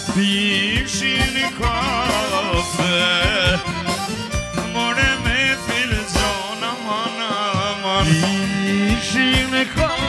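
Albanian folk song music: instruments play quick, wavering, ornamented melody lines over a beat.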